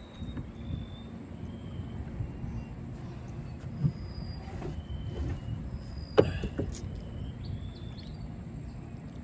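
Small boat's motor running steadily with a low rumble. A few short high chirps come over it, and there is a sharp knock about six seconds in.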